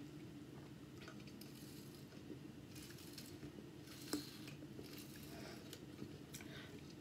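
Soft sips of carbonated water drawn through a plastic straw from a can, over a faint steady hum, with one sharp click about four seconds in.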